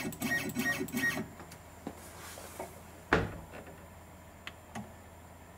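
Hands fitting a drill bit into the spindle of a Roland SRM-20 desktop milling machine. A brief stuttering mechanical sound comes in the first second, a single sharp knock about three seconds in, then a few light clicks.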